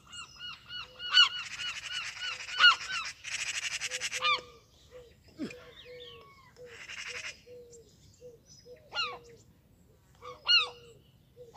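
Geese honking: a rapid run of calls over the first four seconds or so, then scattered single honks.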